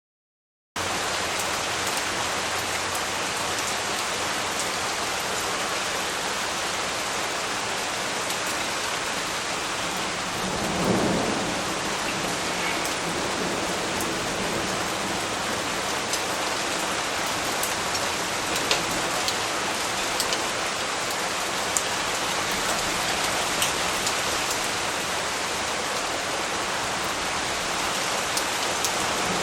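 Steady rain falling on leaves, a dense even hiss with scattered sharp drops, starting abruptly under a second in. A brief low rumble swells about eleven seconds in.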